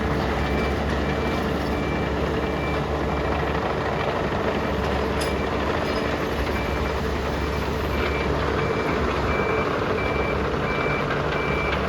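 A backup alarm beeps at a steady, regular rate over the steady running of a diesel machine's engine.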